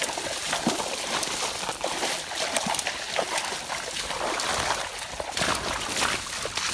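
Footsteps through brush and dry leaf litter: a continuous rustling and crackling with many small snaps of twigs and leaves as someone pushes quickly through the undergrowth.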